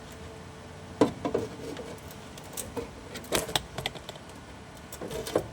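MIG welder tacking a repair-panel flange: a short crackle of arcing about three and a half seconds in, among scattered metallic clicks and knocks.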